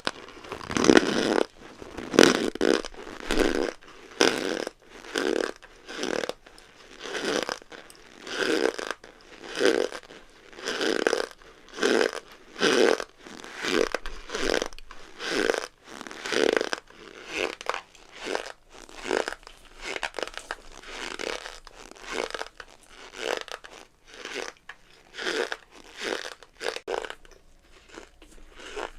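Packed cornstarch squeezed by hand, giving a crunchy creak with each squeeze, about one squeeze a second, softer in the later part.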